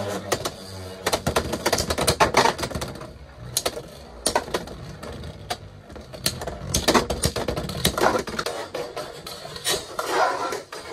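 Two Beyblade X spinning tops clashing and rattling in a plastic stadium: a fast, irregular clatter of sharp metal-and-plastic hits as they collide and skid along the toothed Xtreme rail, with a busier run of hits near the end.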